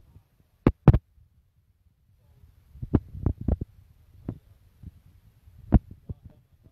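A dozen or so dull thumps and knocks at uneven intervals, the loudest pair about a second in and another cluster around three seconds, over a faint low rumble.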